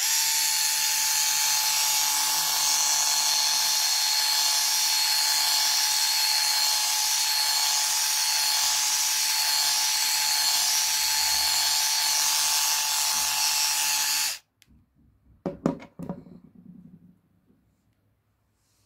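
Dearling 3-in-1 cordless lady shaver with its foil shaver head fitted, its small electric motor running with a steady high whine while it is drawn over arm hair. It switches off abruptly about fourteen seconds in, followed by a few clicks and knocks of handling.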